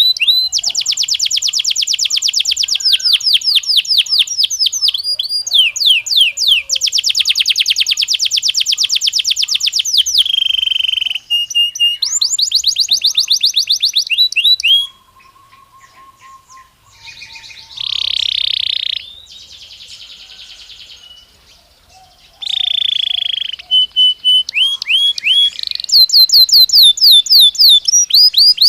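Belgian canary singing loud, fast trills and rolling phrases of rapidly repeated notes. A softer, quieter passage about halfway through breaks the song before the loud trills resume.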